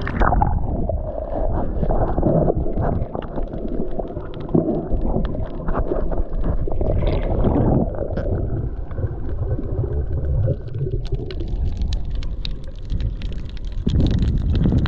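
Muffled underwater rumble and gurgling of water moving around a submerged camera, with many scattered clicks through it.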